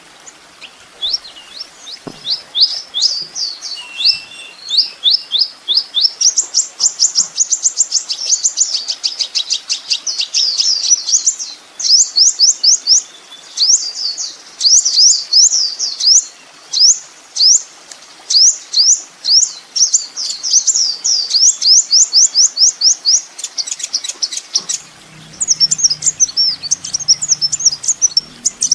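A kolibri ninja sunbird's song: fast, high-pitched runs of quick sweeping chirps, several a second, with short pauses between runs.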